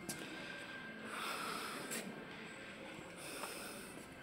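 Faint breathing close to the microphone, two soft breaths about two seconds apart, with a couple of light handling clicks.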